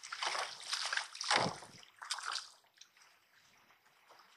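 Water splashing and sloshing in a few quick bursts over the first two seconds or so, as a hooked fish is played up to the side of a small boat.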